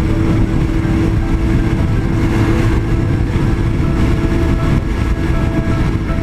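Motorcycle engine running steadily at highway cruising speed, with a held, unchanging note and heavy wind noise.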